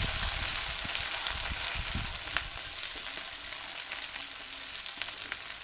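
Chopped ginger, garlic, dried red chillies and curry leaves sizzling steadily in hot coconut oil in a pan, with a few faint pops and crackles.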